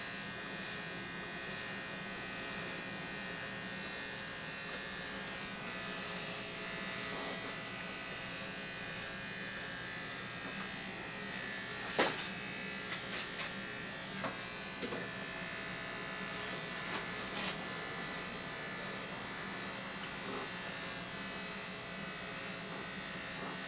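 Corded Remington electric hair clippers running with a steady, even buzz while cutting hair close to the scalp. About halfway through comes one sharp click, then a few lighter knocks.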